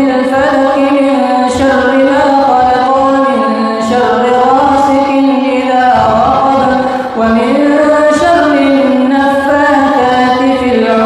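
A man's voice chanting Quranic recitation in a slow, melodic style: long held notes that glide up and down between pitches, without a break.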